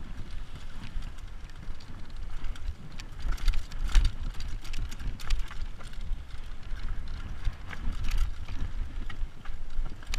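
Downhill mountain bike ridden fast over a dirt trail: a low rumble of tyres and wind, with frequent rattling clicks and knocks from the bike over bumps.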